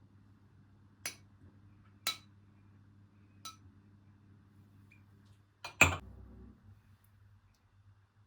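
Kitchenware handled in a home kitchen: three light clinks with a brief ring, then a louder double clatter a little past the middle, as of a dish or pan set down.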